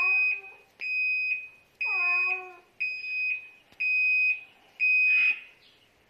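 Toshiba washing machine's end-of-cycle signal: six high beeps of one pitch, about one a second. A cat meows twice, over the first and third beeps.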